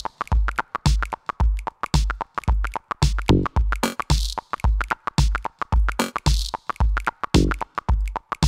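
Electronic music track driven by a drum machine: a deep kick about twice a second, with a bright hissing swell every two seconds over synth and sampled sounds.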